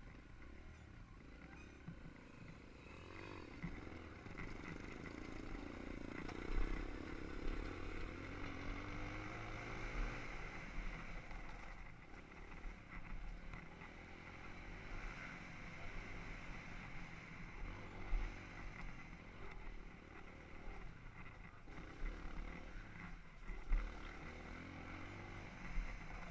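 Dirt bike engine running under the rider, its revs rising and falling as it rides a rough trail, heard muffled from a helmet-mounted camera.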